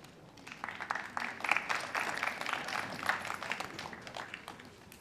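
Spectators applauding: a short round of clapping that builds about half a second in and dies away after about four seconds.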